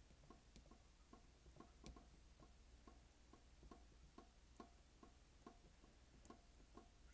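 Faint, quick, regular ticking, about three to four ticks a second, under otherwise near silence.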